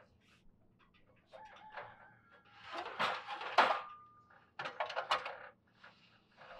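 An aluminium extension ladder and ladder-jack plank being adjusted: scattered metal squeaks, then two sharp clanks about three seconds in, one followed by a brief ringing tone, and more clatter a second later.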